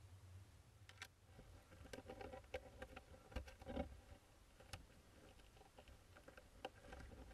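Faint scattered clicks and scratches of hoopoe chicks shuffling and clawing inside their nest box, a little busier about two to four seconds in.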